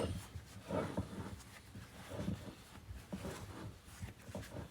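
Faint, scattered handling sounds: a part of a Kurt milling-machine vise being turned and worked by hand, with a few soft knocks and scrapes of metal.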